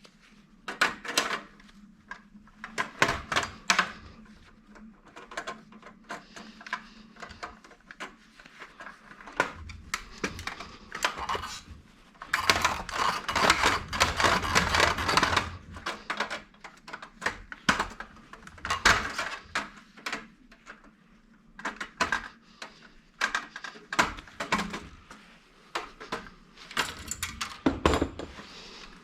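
Scrap parts being taken apart and handled by hand: irregular clicks, knocks and clatter of small metal and plastic pieces, with a longer stretch of busy rattling and scraping a little before the middle.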